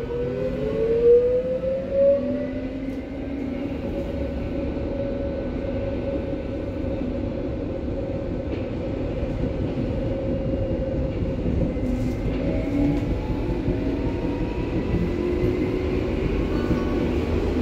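BVG H01 U-Bahn train running, heard from inside the car. The traction drive whines in several tones that rise and then level off in the first two seconds as the train gathers speed. A steady rumble of wheels on rail runs under it, and more whining tones rise again later on.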